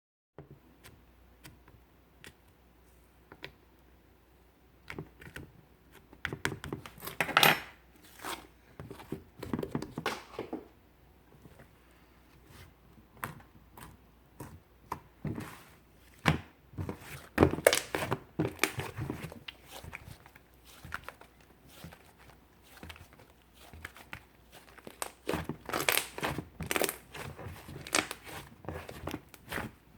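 Slime being squeezed, pressed and stretched by hand: irregular sticky clicks and crackling pops, coming in busy clusters between quieter stretches.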